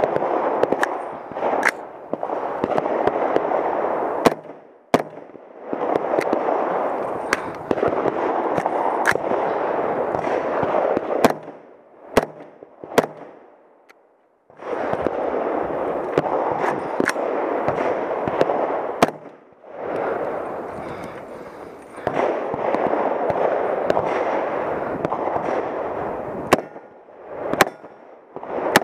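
Single shots from a .300 Blackout AR-15 carbine fired at steel targets, spaced from about a second to several seconds apart. Near the end come a few shots from a Smith & Wesson 327 TRR8 revolver in .357 Magnum. A steady hiss fills the gaps between shots.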